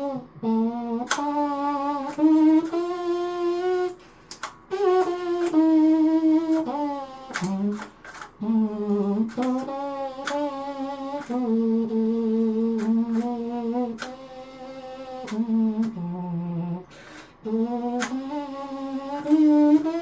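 A 3D-printed plastic rectangle trumpet playing a slow melody in its low range, one note at a time with some notes held, and brief breaks between phrases.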